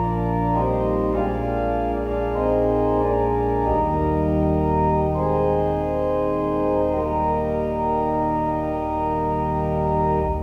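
Organ playing a hymn in long held chords that change every second or two.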